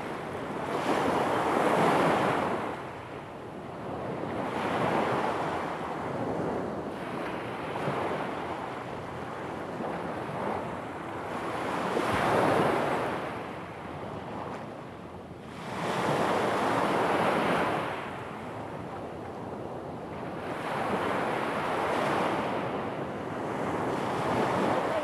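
Small sea waves breaking and washing up a pebble beach, one surge every three to five seconds.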